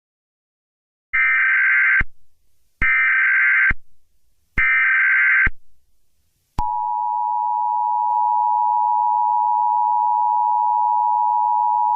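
Emergency Alert System tones: three short bursts of SAME header data, each just under a second, then the steady two-tone attention signal. The attention signal starts about six and a half seconds in and holds.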